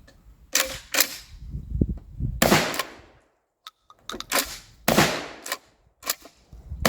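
Axor Arms FMP 12-gauge pump-action shotgun firing several shots in fairly quick succession, roughly a second apart, each with a short trailing echo.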